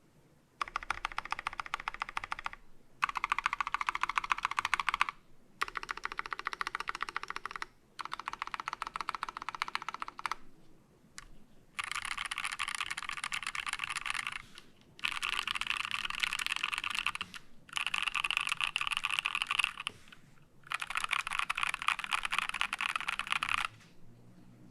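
KEY65 mechanical keyboard with NK Cream linear switches, a titanium plate and HammerWorks CRP keycaps, typed on very fast in eight bursts of about two seconds each with short pauses between. The keystrokes come as a dense clatter of clicks, brighter and sharper in the second half.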